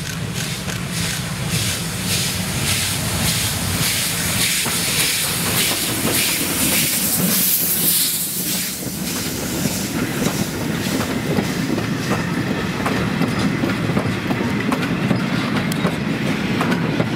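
OKz32-2 steam locomotive working past at close range, its exhaust beating in a regular rhythm, with a loud hiss of steam as the engine goes by just before halfway. After that its train of coaches rolls past with the clickety-clack of wheels over rail joints.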